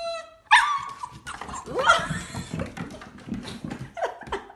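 A dog whining and vocalizing in a string of drawn-out pitched calls, one after another.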